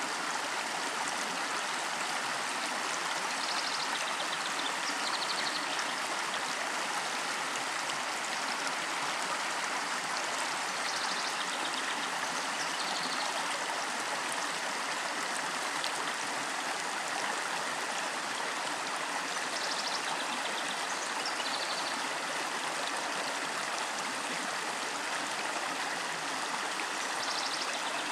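Steady rush of water flowing in a small creek, with a few short, faint high trills now and then.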